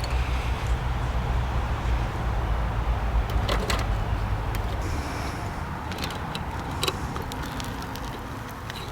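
Low rumble of wind buffeting the microphone, easing about halfway through, with a few sharp clicks of handled kit.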